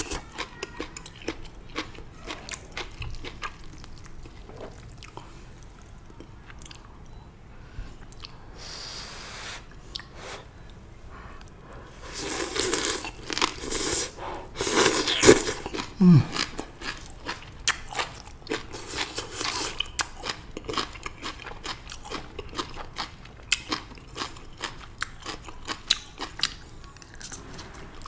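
Close-up eating sounds of stir-fried water spinach (morning glory): wet chewing with many small crunches, louder for a few seconds in the middle.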